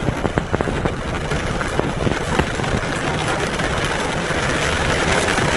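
Heavy rain pelting a car's windshield and roof, heard from inside the car over a low engine and road rumble. Many sharp drop hits in the first two seconds or so, then a steadier wash of rain.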